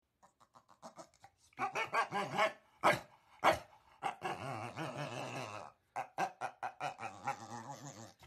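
A dog making a run of short grumbling vocalizations that waver up and down in pitch. There are two sharp, loud barks about three seconds in, then a long wavering vocalization and more short grumbles.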